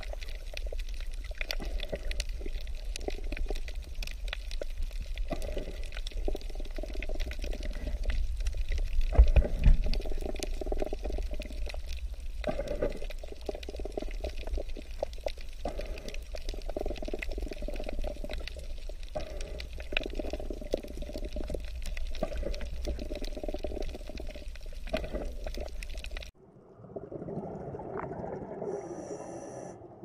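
Underwater reef ambience picked up by the camera: water sloshing around the housing, a low rumble and a dense crackle of small clicks. About 26 seconds in it cuts abruptly to a quieter, duller underwater sound.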